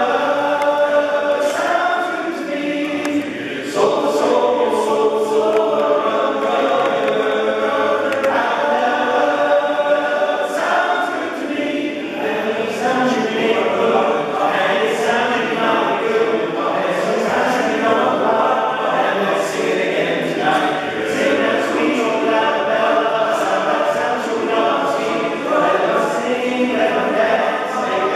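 Men's choir singing a cappella in close harmony. The voices ease off briefly about three seconds in and come back in strongly a moment later.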